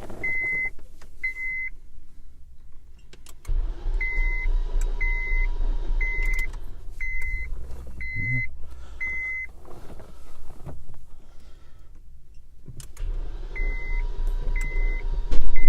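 2003 Honda Accord's starter motor cranking the engine for about six seconds, then again near the end, without the engine catching, while a dashboard warning chime beeps about twice a second. It is a no-start that a new ignition switch has not cured.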